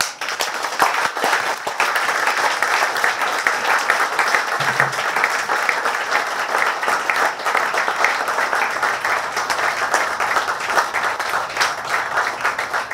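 Audience applauding, many hands clapping densely and steadily; the applause breaks out suddenly and keeps up without letting up.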